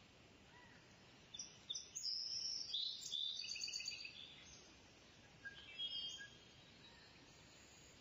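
Small birds chirping and twittering in high, quick calls: a cluster of chirps starting about a second in and lasting some three seconds, then a shorter burst around six seconds, over a faint hiss.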